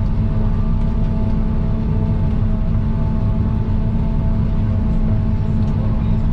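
John Deere 8400i self-propelled forage harvester running steadily under load while chopping silage: a dense low drone with a few steady whining tones above it, heard from inside the cab.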